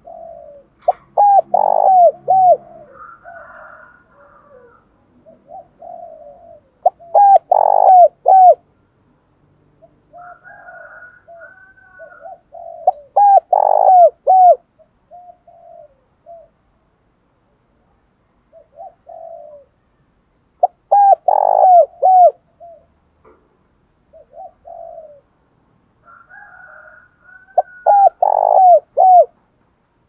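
Spotted dove cooing: five phrases, about six to seven seconds apart, each a short run of loud arched coos. This is the decoy bird's advertising coo, used to set other doves cooing. Fainter bird calls sound in the gaps between phrases.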